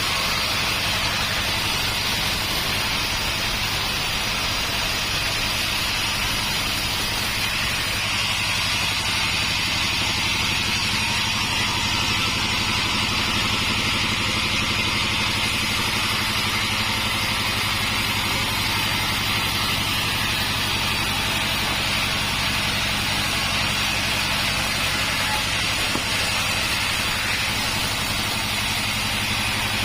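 Homemade sawmill running steadily while sawing an acacia log: a low, even hum from its drive with a constant hiss from the blade above it.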